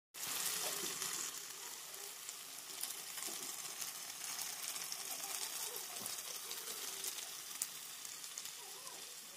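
Gizzards and liver (pota kaleji) sizzling in hot oil and masala in a kadhai: a steady frying hiss with scattered small pops and crackles.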